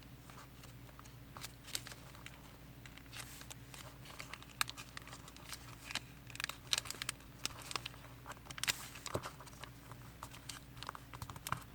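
Square origami paper being folded and creased by hand: scattered light crinkles, rustles and taps of paper, over a faint steady low hum.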